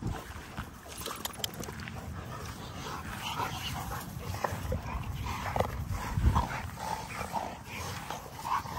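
Several XL American Bully dogs play-fighting, with short, scattered vocal noises and scuffling.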